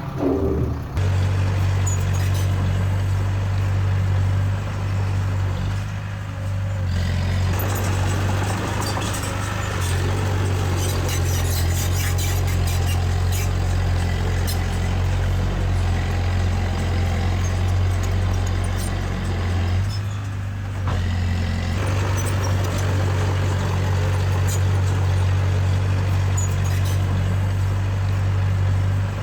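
Heavy earthmoving machine's diesel engine running steadily under load, a deep drone that drops and picks up again about 7 seconds in and again around 21 seconds. Scattered light clanks and ticks ride over it, most of them in the first half.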